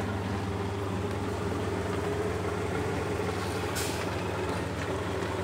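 MAN TGS 26.480 truck's six-cylinder diesel engine idling steadily, with a brief hiss about four seconds in.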